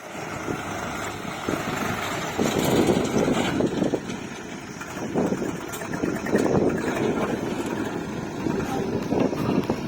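Heavy diesel machine's engine running, its level swelling and easing every couple of seconds.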